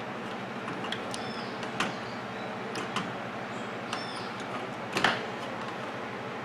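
Several sharp clicks and a couple of short squeaks from metal parts being handled as a replacement microwave high-voltage capacitor is fitted into its mounting clamp. The loudest click comes about five seconds in.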